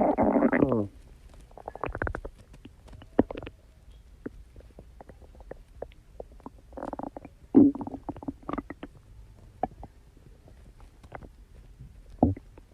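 A person's stomach growling: a loud, pitched rumble at the start that slides down in pitch and stops within a second, then scattered short gurgles and pops, with louder gurgles about seven to eight seconds in and another near the end.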